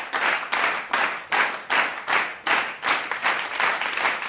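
A group clapping together in a steady rhythm, about two and a half claps a second, loosening into general applause near the end.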